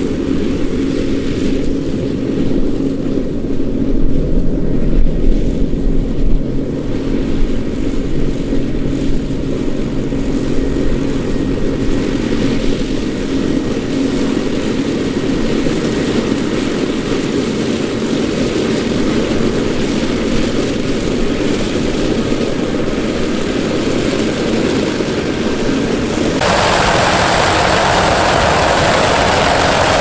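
Dewulf Kwarto self-propelled chicory harvester running in the field: a steady engine drone with a constant low hum. About 26 seconds in, the sound jumps to a louder, hissier run of the machine working.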